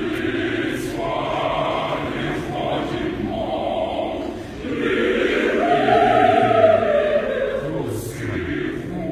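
Choir singing, several voices together. The voices swell louder about halfway through, with a high note held for a couple of seconds.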